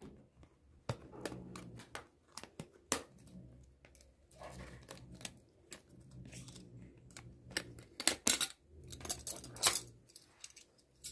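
Scissors snipping and packaging rustling as a bundle of metal spoons is cut free from its card, with the spoons clicking and clinking against each other in a string of short sharp sounds.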